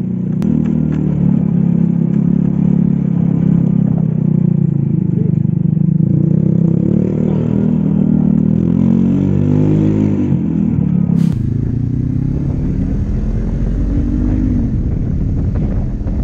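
Motorcycle engine running under way, recorded on a helmet camera, revving up and down twice shortly before a sudden sharp noise about eleven seconds in. After it comes another motorcycle's engine with rushing wind noise.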